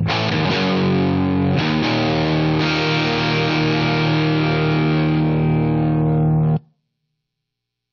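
Electric guitar (Gibson Flying V) played through a Scarlett Scout tube amp head with two 6L6 power tubes, heard through a miked 4x12 cabinet loaded with Vintage 30 speakers. Sustained chords ring out, changing a couple of times, then the sound cuts off abruptly into silence near the end.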